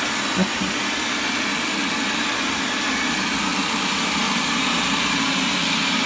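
Vacuum Mop Pro robot vacuum running as it cleans, its suction fan and brushes making a steady hum and hiss.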